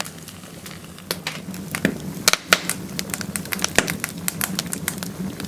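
Irregular sharp clicks and crackles, a few a second, over a steady low hum.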